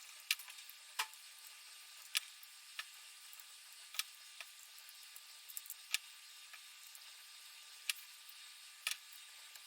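Irregular sharp clicks and taps, about a dozen spread unevenly, from parts and tools being handled while a subwoofer cabinet is assembled, over a faint steady hiss.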